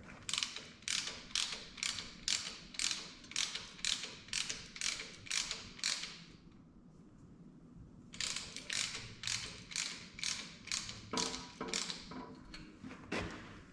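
Ratchet clicking in steady, even strokes, about two a second. The clicking stops for a moment about halfway through, then resumes.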